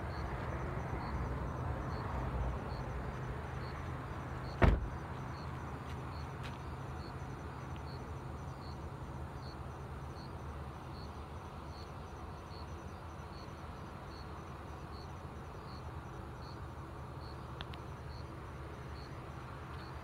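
Steady low hum of a running engine, like a vehicle idling close by, with one sharp knock about five seconds in.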